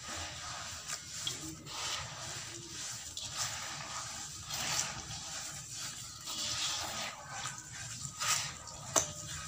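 Wet, gritty sand-cement mix squished and crumbled by hand in a bowl of water: repeated wet scrunching strokes, one or two a second, with a sharp click near the end.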